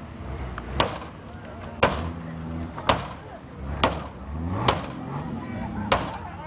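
Sledgehammer blows on the sheet-metal body of a wrecked car: six heavy metallic strikes, about one a second.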